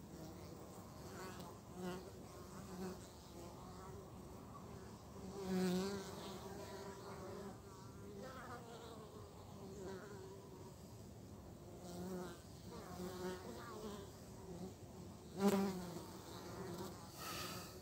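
Honeybees buzzing at a crowded hive entrance: a steady hum of many wings, with single bees flying close past the microphone, their buzz swelling and bending in pitch, loudest once about six seconds in and again a couple of seconds before the end.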